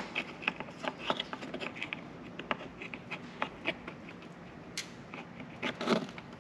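Scattered light plastic clicks and taps from handling an aftermarket headlight assembly and plugging in its turn-signal wiring connector, with a small cluster of clicks near the end.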